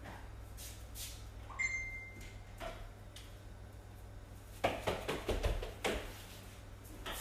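Knocks and thuds over a steady low hum, with a short high electronic beep about one and a half seconds in and a burst of louder knocks and bumps about five seconds in.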